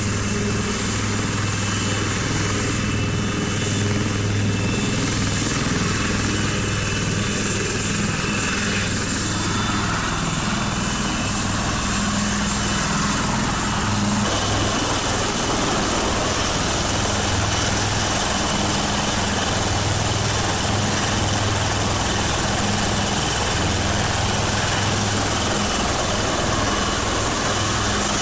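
HAL Dhruv twin-turbine helicopter running on the ground with its main rotor turning: a steady low rotor hum under a high, steady turbine whine.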